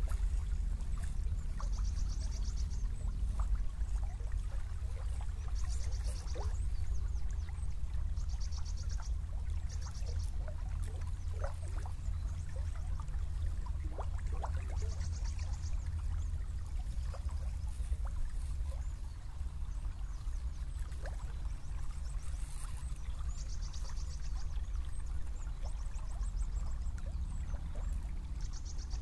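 A small river's water trickling and gurgling past reeds over a steady low rumble. A short, high, rapid trill of about a second repeats every few seconds.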